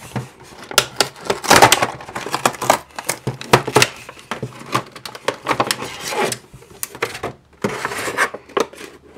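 Clear plastic blister pack being pulled off the cardboard backing of a toy package: a run of sharp crackles, crinkles and snaps, pausing briefly about seven seconds in.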